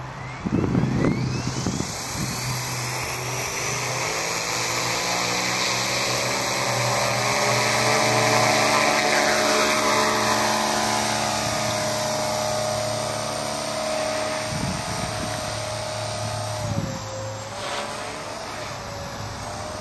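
Radio-controlled model helicopter spooling up, its whine rising in pitch over the first few seconds, then running steadily in flight with a buzzing drone that dips briefly in pitch near the end.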